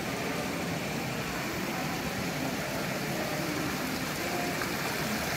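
Steady outdoor background noise, an even hum and hiss with no distinct events, of the kind distant traffic makes.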